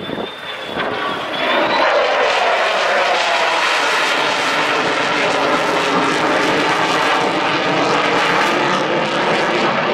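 F-35 Lightning II fighter jet flying past, its Pratt & Whitney F135 turbofan engine swelling over the first two seconds and then holding a loud, steady roar as its pitch slowly sinks.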